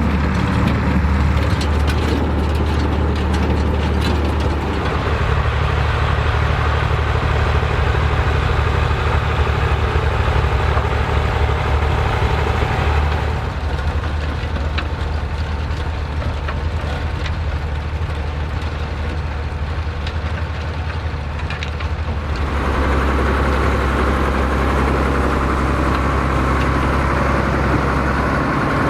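Vintage farm tractor engine running steadily, with scattered clicks and knocks of machinery. The sound drops somewhat in level about halfway through, then comes back louder a few seconds later.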